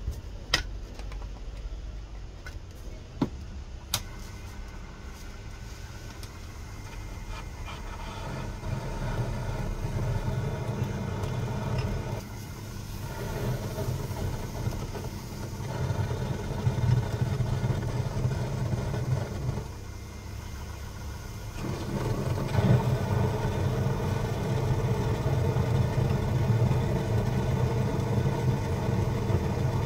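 Proxxon mini lathe running while a parting tool cuts into a spinning 304 stainless steel bar: a steady motor hum with cutting noise that grows louder about a quarter of the way in and eases off briefly twice. A few sharp clicks in the first few seconds.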